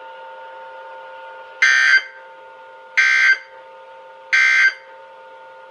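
Emergency Alert System end-of-message signal: three short, buzzy digital data bursts about 1.4 s apart, sounded as the severe thunderstorm warning broadcast closes. A faint steady hum runs underneath.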